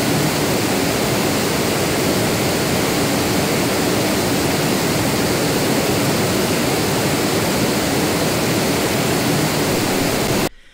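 Steady, even, full-range hiss of test noise played back from a recording, cutting off suddenly near the end.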